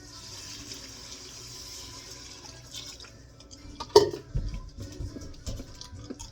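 Kitchen tap running for about three seconds, then a single loud clank about four seconds in, followed by several lighter knocks.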